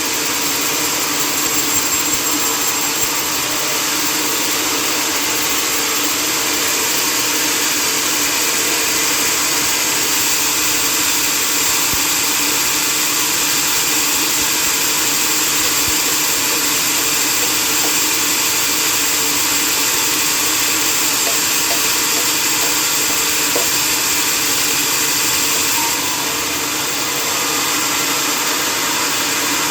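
Sawmill machinery running steadily, a loud, even whirring noise that drops slightly in level near the end.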